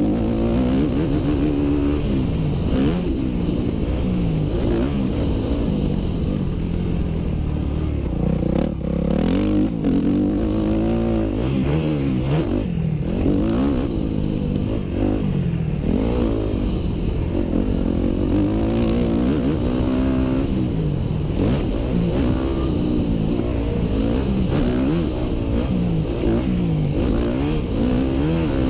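2009 Yamaha YZ250F single-cylinder four-stroke motocross bike ridden hard on a dirt track: the engine revs up and drops back again and again as the throttle opens, closes and the gears change.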